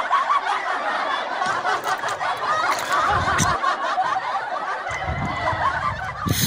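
Many people laughing and snickering together, a laugh track that cuts off abruptly near the end.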